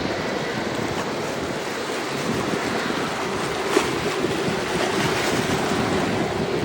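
Airbus A330 jet engines running at taxi power: a steady rushing noise with a faint steady hum.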